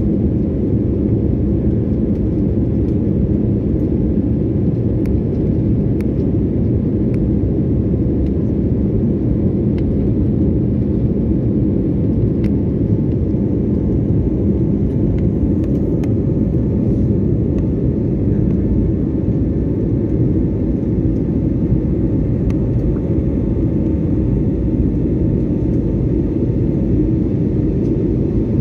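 Steady cabin noise of a jet airliner in flight after take-off, engines and airflow heard from a window seat over the wing: a loud, even, low rumble with a faint steady hum.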